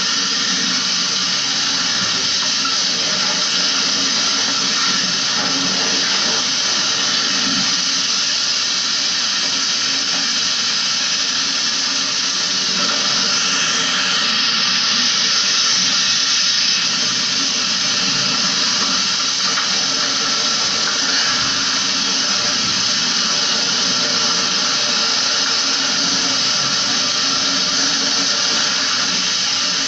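Water spraying steadily from a hose onto the plastic front grille of a window-type air conditioner, rinsing it clean.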